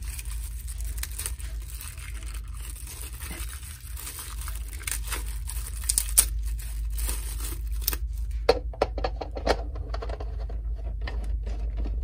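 Thin plastic bags crinkling and tearing as small plastic parts are unwrapped by hand, with a run of sharp clicks and knocks in the second half as the parts are handled against a hard plastic base. A steady low hum runs underneath.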